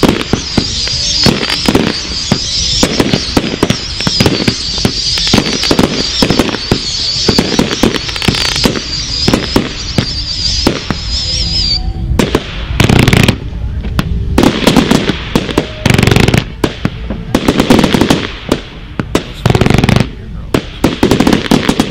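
Firework cakes firing rapid sharp reports over a continuous high-pitched sound for about twelve seconds. The high sound stops abruptly, and heavy salute booms follow in quick irregular succession.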